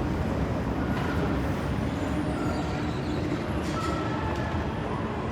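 Low, steady rumble of city street traffic, with a few faint short high tones above it.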